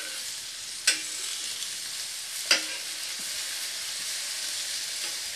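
Eggplant slices sizzling steadily in a little oil on a flat tawa over a low flame, with two sharp clicks of a metal spatula against the pan as the slices are turned over.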